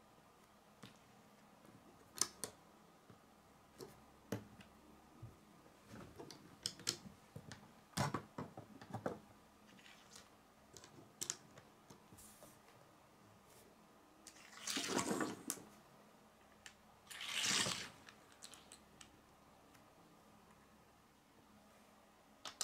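Plastic Lego bricks clicking and snapping together and tapping on a wooden tabletop, in scattered single clicks. Two longer rustling noises of about a second each come about two-thirds of the way through.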